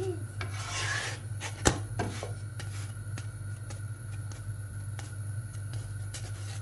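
Wooden spatula pressing and rubbing a puffed spinach flatbread in a dry nonstick frying pan, with a few light clicks and one sharper tap about one and a half seconds in. A steady low hum runs underneath.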